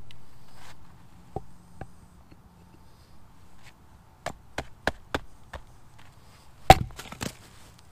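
A hatchet striking and splitting a short piece of wood stood upright on a log: sharp wooden knocks, two single ones early, a quick run of about five taps around the middle, and two heavier strikes near the end.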